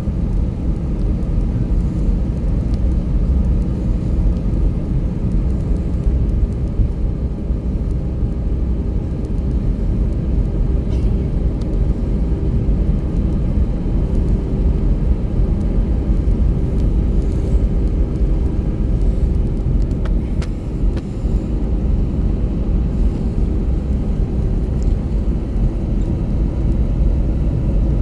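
Airbus A321-200 cabin noise at takeoff thrust: a loud, steady rumble of the jet engines and rushing air, with a steady hum that fades away about 25 seconds in.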